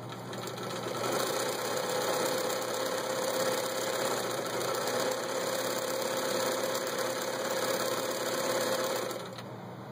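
Bernina Record 830 sewing machine sewing a stitch pattern through cloth: the motor winds up over the first second, the needle runs steadily for about eight seconds, then it stops.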